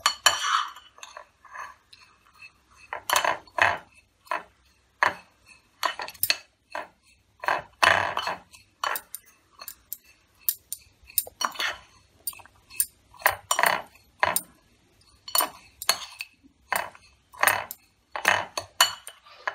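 A metal spoon stirring a dry, crumbly mixture in a glass bowl, scraping and clinking against the glass in irregular strokes with short pauses between them.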